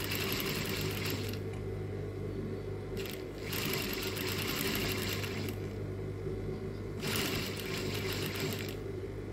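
Industrial sewing machine stitching a seam in three short runs of one to two seconds each, stopping and starting as the fabric is guided, with a steady motor hum underneath throughout.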